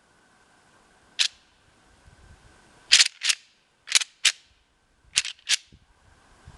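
Sharp clacks of rattling antlers knocked together: one single strike, then three quick pairs, imitating two bucks sparring to draw in rutting whitetails.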